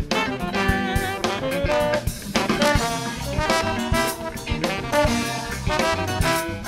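Live funk instrumental: saxophone and brass horn lines playing over a drum kit and bass.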